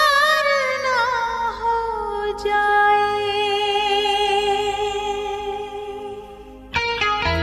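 Bollywood film song intro: a woman's wordless sung note with vibrato, sliding down over the first couple of seconds and then held long over soft, low accompaniment. A strummed guitar comes in near the end.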